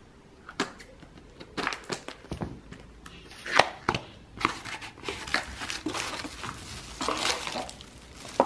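Plastic packaging being handled, crinkling and rustling in irregular sharp crackles that become busier after about a second and a half.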